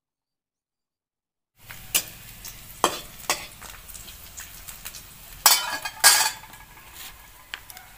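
Silence, then from about a second and a half in, food-preparation sounds: a crackling hiss with sharp clicks and scrapes, the loudest pair about four seconds later.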